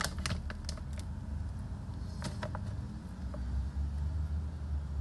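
Crackling and crinkling from a plastic bag of crisp melinjo crackers being handled and a cracker picked out, in short clusters of clicks just after the start and again about two seconds in. A steady low rumble runs underneath.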